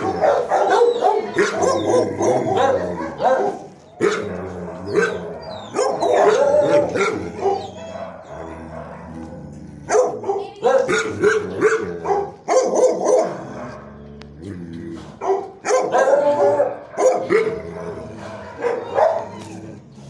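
Shelter dogs barking in their kennels, in repeated bouts with short lulls between them.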